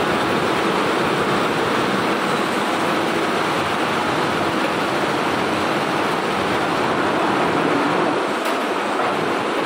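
Barudan multi-head embroidery machine running: a steady mechanical running noise with no pauses.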